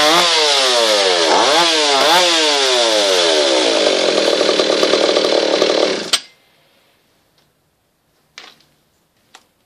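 Vintage Italian Mondial 657 two-stroke chainsaw cutting through a log at high revs, its worn-out chain still cutting; the engine pitch sags and picks up twice early on, then drops and holds under load. About six seconds in the engine stops abruptly, and a couple of faint knocks follow.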